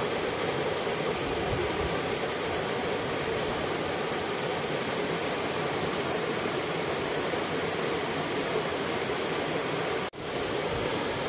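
Steady rush of falling water from a waterfall, broken by a momentary dropout about ten seconds in.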